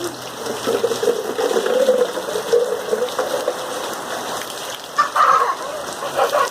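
Water gushing and splashing steadily, with a bird's short call about five seconds in.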